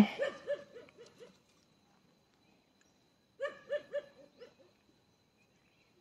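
An animal calling: a rapid series of short, pitched notes, about seven a second, coming in bursts at the start and again around the middle.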